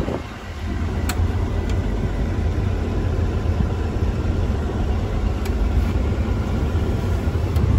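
Mack Titan heavy-haul diesel truck engine running steadily under way, heard from inside the cab as a deep low rumble with a few faint ticks.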